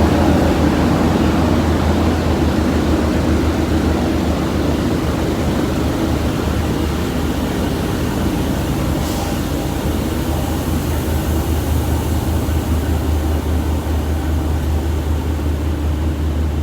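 Diesel engine of a Plasser & Theurer track maintenance machine running with a steady low drone, slowly fading as the machine pulls away along the track.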